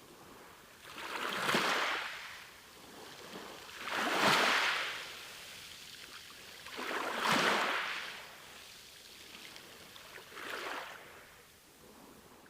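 Sea waves breaking and washing in, four surges about three seconds apart, each swelling and fading away, the last one weaker.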